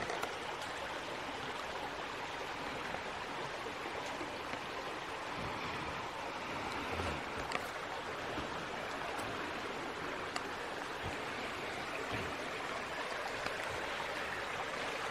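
A creek running steadily, a continuous wash of flowing water, with a few faint clicks over it.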